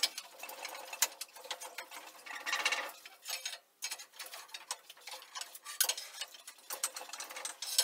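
Metal clicks, clinks and knocks as a long steel bar levers a flathead V8 engine hanging from an engine-crane chain into position, with the chain and engine rattling; a denser rattle comes about two and a half seconds in.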